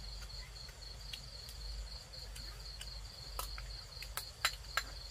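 Crickets chirping in a steady, pulsing high trill, with a few sharp clinks of a spoon against ceramic bowls in the second half.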